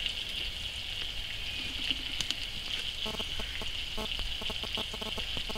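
Vegetables sizzling in a frying pan over campfire coals: a steady hiss, with small irregular crackles and pops from about three seconds in.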